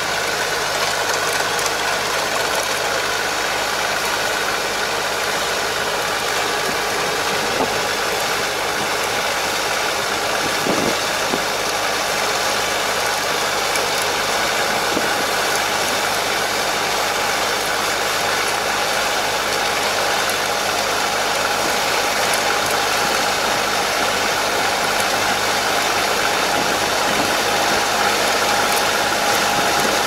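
Kubota KL270 tractor's diesel engine running steadily under load while it drives a Kobashi levee-plastering machine that shapes the paddy-field levee.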